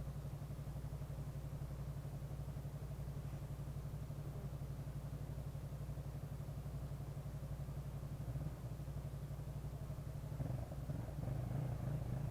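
Honda PCX scooter's single-cylinder four-stroke engine running steadily with a fast, even low pulse, growing louder about ten seconds in.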